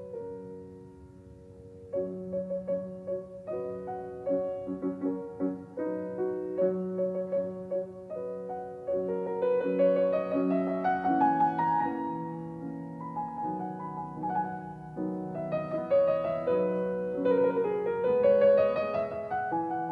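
Background piano music: a slow melody over held chords, with runs of notes climbing upward about halfway through and again near the end.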